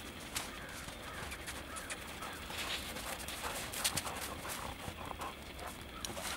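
Light, scattered crunching footfalls in snow from a yellow Labrador retriever running in to heel and sitting down.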